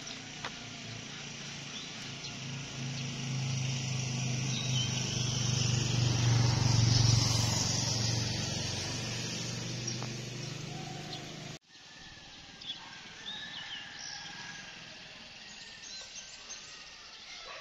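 A motor vehicle passes by: its engine hum grows to its loudest about seven seconds in and then fades away, with birds chirping around it. After a sudden cut near the end, only faint bird chirps remain.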